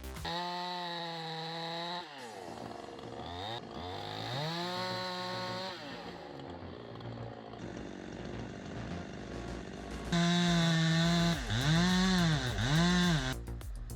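Chainsaw engine revving in spells, held at high speed for a second or two and then easing off. Near the end it is loudest, and its pitch dips and climbs back twice as the throttle is released and opened again.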